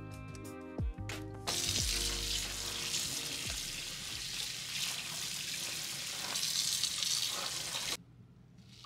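Tap water running onto a rack of raw pork ribs in a stainless steel kitchen sink as they are rinsed, starting about a second and a half in and cutting off abruptly near the end. Background music plays before the water starts.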